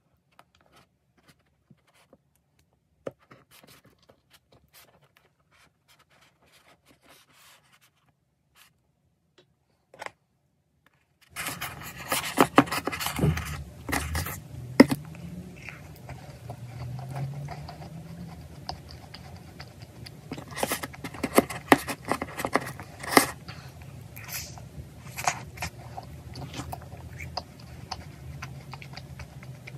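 A knife and fork cutting into a homemade strawberry cream tart with a crumbly crust. A few faint clicks, then from about a third of the way in, louder scraping and sharp clicks of cutlery breaking the crust and knocking on the tray, over a low hum.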